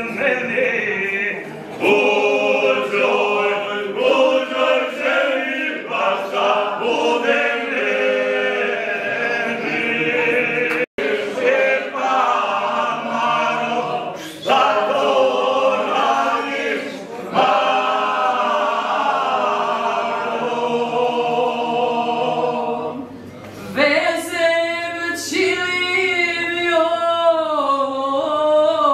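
Folk vocal group of men and women singing unaccompanied in long held notes, with a split-second dropout in the sound about eleven seconds in and a wavering, ornamented line near the end.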